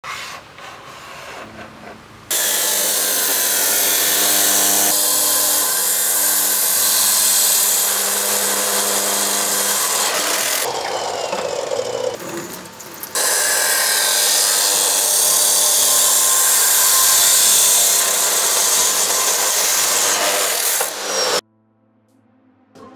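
Electric power tools working wood, in edited clips: a motor running under load as it cuts through timber, in two long stretches with quieter handling between, and abrupt changes where the clips are joined.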